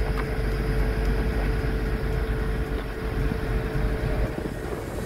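Heavy diesel machinery running steadily, a low rumble with a held humming tone over it that eases slightly near the end.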